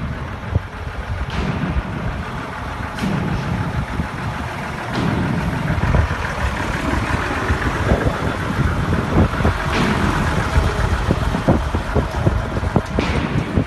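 Small LPG bobtail tank truck's engine idling steadily, with a few light knocks.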